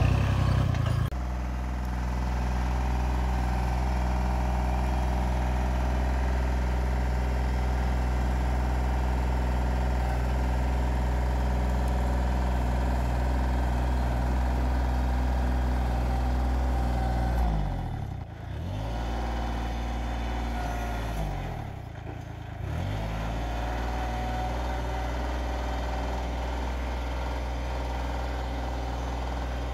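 Kubota L-series tractor's diesel engine running steadily while its front loader pushes brush. The engine speed dips and comes back up twice in the second half.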